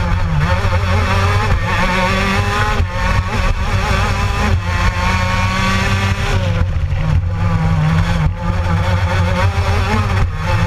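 Gilera racing kart engine heard onboard at full race pace, its pitch climbing out of each corner and falling back each time the throttle is lifted, several times over, about every two seconds.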